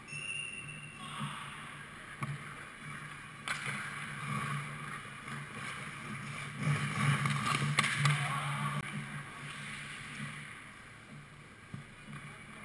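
Ice hockey rink ambience: a steady low hum and the scraping hiss of skate blades on the ice, growing louder for a few seconds in the middle, with a few sharp knocks.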